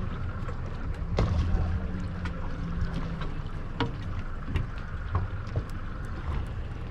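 A boat's engine running steadily at low revs, with scattered small clicks and knocks.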